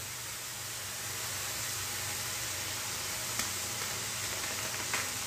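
Broccoli stir-fry sizzling steadily in a kadai while it sits unstirred, with a couple of faint ticks in the second half.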